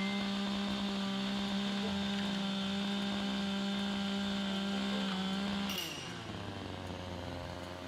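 Two-stroke chainsaw held at full throttle, cutting through a thin bamboo culm. About six seconds in the cut goes through, and the engine speed falls away.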